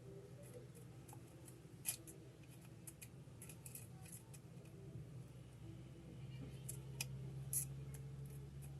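Faint, scattered clicks of small hand tools being handled in a phone repair, about half a dozen sharp ticks. Underneath is a low steady hum that grows a little stronger about six seconds in.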